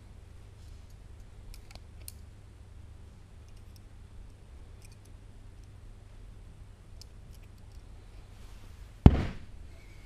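Homemade butterfly-knife ice pick with roller-chain handles giving a few light metallic clicks as it is handled. About nine seconds in comes one loud thud as its screwdriver-shaft spike is stabbed into the wooden workbench top.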